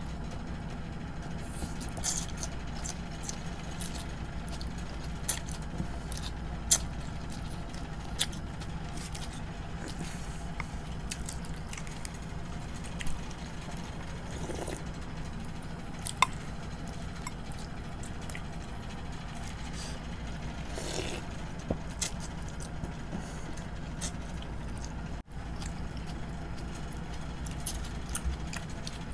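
People eating khanom jeen rice noodles with chopsticks: slurping noodles, with scattered light clicks of chopsticks against ceramic bowls, over a steady low hum.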